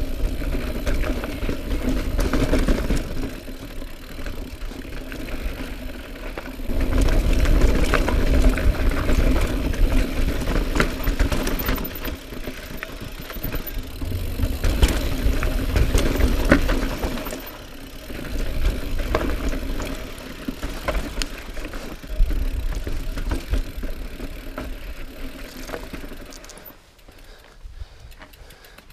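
2018 Norco Range mountain bike riding over rocky desert trail: tyres crunching on rock and the bike rattling, with bursts of low wind rumble on the camera. Near the end it slows and goes quieter, leaving a fast fine ticking like a rear hub freewheeling.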